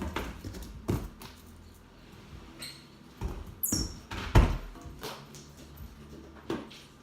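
A squirrel monkey gives a short, very high squeak that falls in pitch, about three and a half seconds in. Around it are a few sharp thumps and knocks from the play, the loudest about four and a half seconds in.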